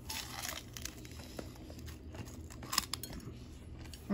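Quiet chewing of fried chicken feet, with scattered small crackles and clicks and one sharper click near the end.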